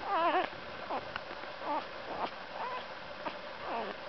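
Newborn boxer puppy crying: a wavering, warbling squeal at the start, the loudest, then a string of about five shorter high squeaks and whimpers.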